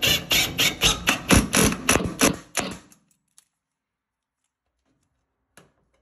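Cordless drill driving a mounting screw through the medicine cabinet's side wall into the wooden blocking behind it, the motor going in short pulses about three or four a second and stopping about three seconds in. A faint click follows near the end.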